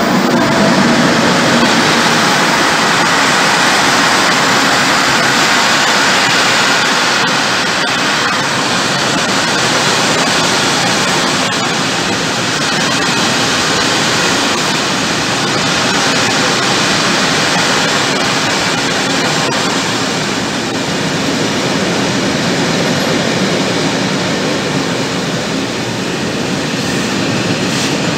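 An FS E.652 electric locomotive passing close by, followed by a long string of Eanos open freight wagons rolling past: a loud, steady rush of steel wheels on rail, loudest as the locomotive goes by at the start, with a few faint clicks from the wheels over rail joints.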